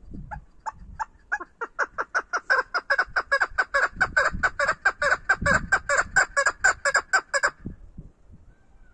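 Female chukar partridge calling from its cage: a long run of short clucking notes, about four to five a second, starting softly and building up louder, then breaking off about seven and a half seconds in.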